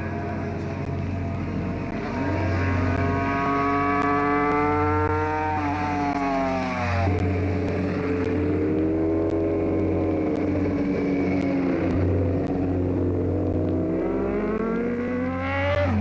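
Rally car engine running hard on a timed stage. Its note climbs with the revs and drops sharply at gear changes, about six seconds in and again at the very end.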